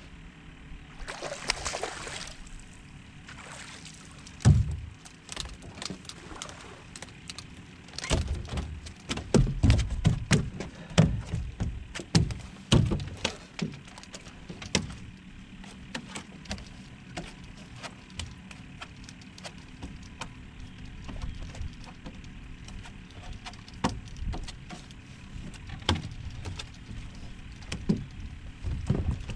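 Knocks and thumps on the deck of a small fiberglass fishing boat as a fish is brought aboard and handled. There is one loud thump about four seconds in, then a run of quick knocks and clatter for several seconds, and scattered knocks after that.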